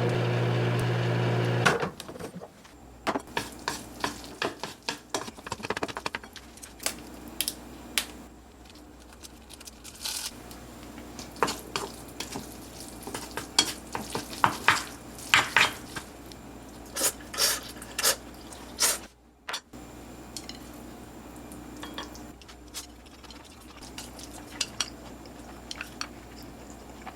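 A microwave oven hums steadily and shuts off a couple of seconds in. Then a utensil clinks and scrapes against a bowl as cooked jjajang ramen noodles are stirred and mixed, many short irregular clicks.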